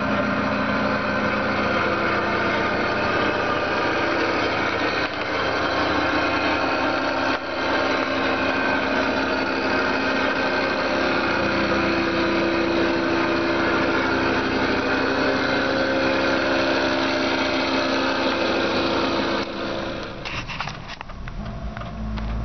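A 2006 Subaru Sambar's rear-mounted 660 cc four-cylinder engine idling steadily, heard from beneath the van. About twenty seconds in the sound turns duller and deeper, heard from inside the cab.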